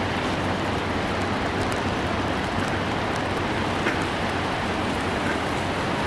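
Steady rushing of the Chaudière River waterfall: an even, unbroken noise of falling water with no change in level.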